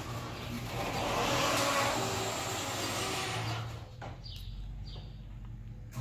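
Sectional overhead garage door rising on an electric opener: the motor hums and the panels' rollers rattle along the steel tracks. The noise drops away about four seconds in as the door reaches fully open.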